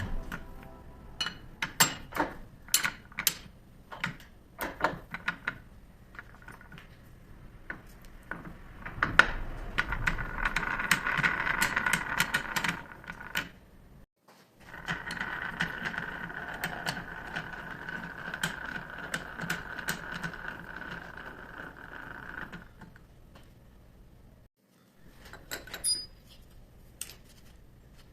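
Metal lathe work: a run of light metal clicks and clinks, then the lathe running steadily as it cuts, for several seconds with a sudden break partway, and a few more clinks near the end.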